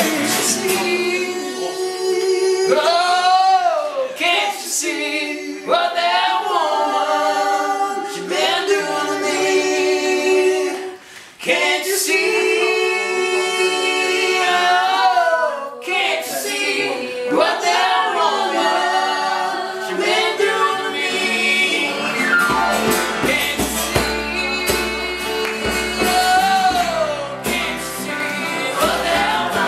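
Female and male voices singing together over acoustic guitar, keyboard and djembe hand drum in a small live band. Deeper bass notes join about two-thirds of the way through.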